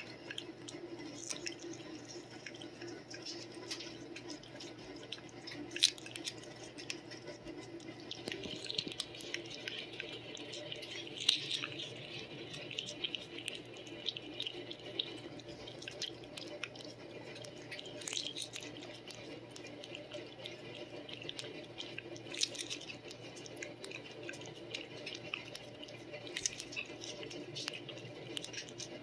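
A cat licking paste treat from a squeeze tube: a long run of small, irregular wet lapping and smacking clicks, with a few sharper clicks, over a steady low hum.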